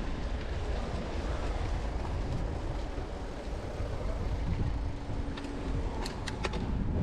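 Wind buffeting the microphone in a steady rumble, with a few sharp clicks about six seconds in.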